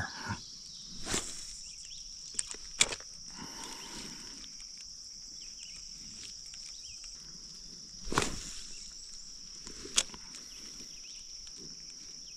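Steady high-pitched insect chorus, with a few sharp clicks and knocks over it, the sharpest about three seconds in and near the end.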